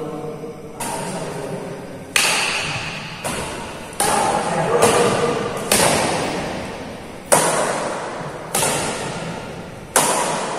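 Badminton racket strings smacking a shuttlecock back and forth in a rally: about nine sharp hits, unevenly spaced about a second apart, each ringing on in the echo of a large hall.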